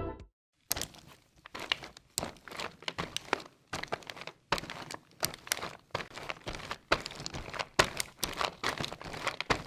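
Irregular crinkling and crunching: a dense, uneven run of small sharp cracks, starting about half a second in.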